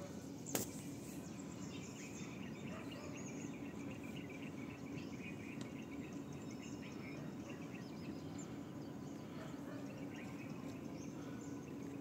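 Outdoor ambience: many small bird chirps and insect calls over a steady low hum, with one sharp click about half a second in.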